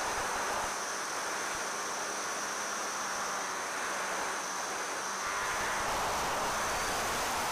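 Steady hissing rush of air and motor noise from a small electric RC plane in flight, picked up on board; the low rumble thickens about five seconds in.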